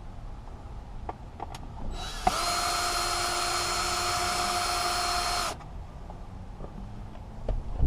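Cordless power drill/driver spinning up and running steadily at one constant pitch for about three and a half seconds, then stopping sharply. A few light clicks come before it and a single knock near the end.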